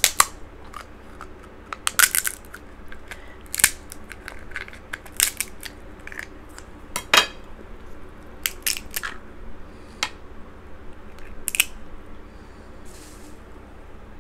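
Crab leg shells being cut and cracked open with scissors and a knife: a dozen or so irregular sharp cracks and snaps of shell.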